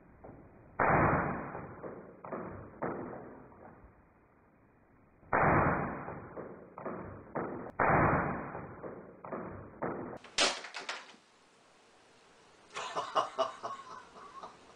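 Knocks and clatter from a miniature desktop drum kit being put together by hand. Three loud, muffled knocks that ring on and fade are followed near the end by quick light clicks and rattling of small parts.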